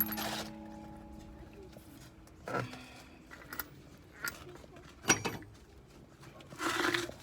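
Metal clinks and knocks from a wheel bolt and tools being handled while a car's rear wheel is taken off. A sharp knock right at the start leaves a metallic ring that fades over a couple of seconds. Scattered clinks follow, with a louder knock about five seconds in and a brief scrape near the end.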